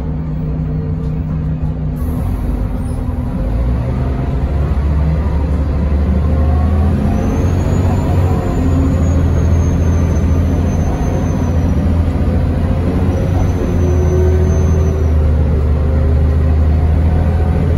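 Mercedes-Benz O405NH city bus engine heard from inside the passenger cabin, running under load and building up over the first few seconds, with a brief dip in the engine note about twelve seconds in. A faint high whistle comes and goes twice in the middle.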